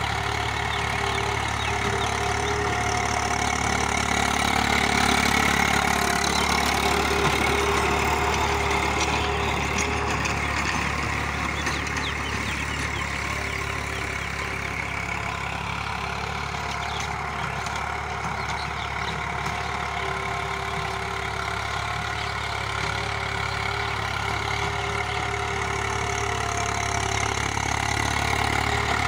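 Tractor diesel engine running steadily under load while it pulls a rotary tiller through the soil. It grows louder about five seconds in, fades somewhat through the middle, and swells again near the end as the tractor passes closer.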